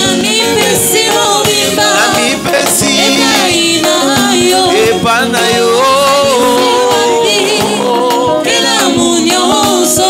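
Live Congolese gospel worship song sung in Lingala: a male lead singer with backing singers on microphones, over an electric keyboard and a steady beat.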